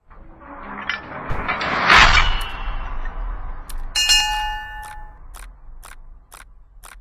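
Animated-intro sound effects: a rising whoosh that builds to a hit about two seconds in, then a bright bell-like ding with a ringing shimmer, then a run of short clicks about two a second.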